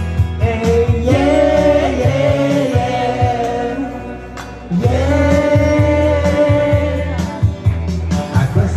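Karaoke singing into a microphone over a backing track played through a PA. The voice holds two long notes, with a brief dip in loudness about four seconds in.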